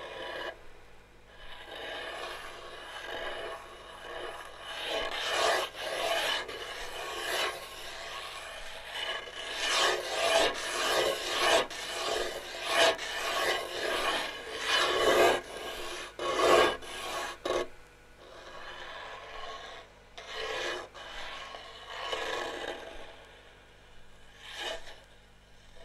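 Rough rasping and rubbing noise in irregular strokes, densest and loudest in the middle and thinning out in the last third, over a faint steady low hum.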